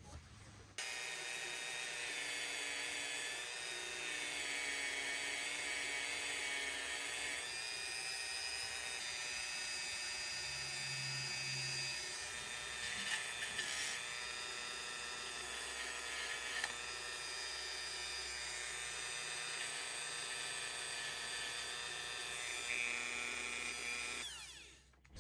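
Powered wire brush running steadily against the steel of a pocket knife: a high-pitched whine over a scratchy hiss that starts abruptly about a second in and stops just before the end.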